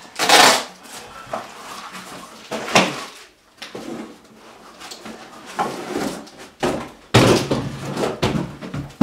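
Cardboard shipping box being opened by hand, its flaps pulled open and a shoebox lifted out past the plastic packing, in a string of rustles and scrapes. The loudest stretches come just after the start and from about seven seconds in.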